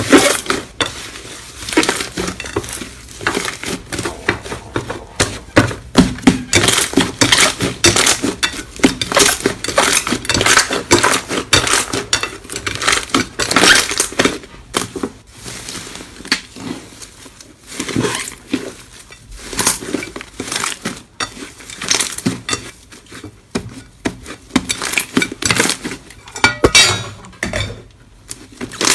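Slime being squeezed and worked by hand: a dense run of crackles, clicks and pops, with the crisp clinking, crunching quality of crunchy slime.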